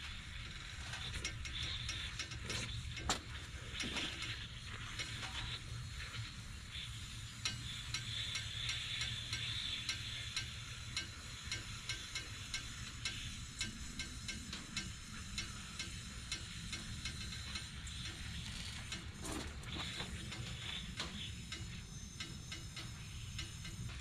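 Hand tool ratcheting and clicking against metal in runs of quick clicks, over a steady low hum.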